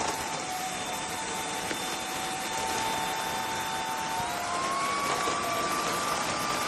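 Eureka RapidClean Pro NEC280TL cordless stick vacuum running, a steady motor whine over a hiss of rushing air. About four seconds in the motor speeds up: the whine rises in pitch and holds there.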